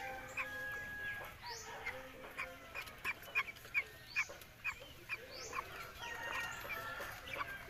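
A flock of young broiler chickens calling: a run of short peeps and clucks, several a second, busiest about halfway through.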